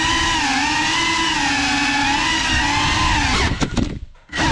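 Small FPV quadcopter's motors and propellers whining steadily with a slightly wavering pitch. About three and a half seconds in, the throttle is cut and the sound almost stops for about half a second. It then comes back near the end.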